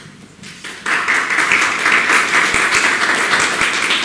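An audience applauding, breaking in suddenly about a second in and then holding as dense, steady clapping.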